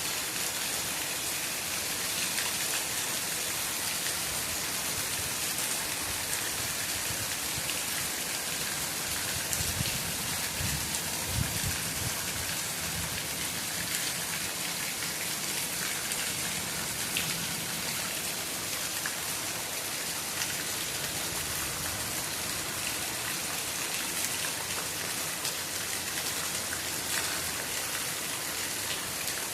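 Steady rain falling under a tree, an even hiss dotted with many single drops ticking on surfaces. A few low rumbling bumps come through about ten to twelve seconds in.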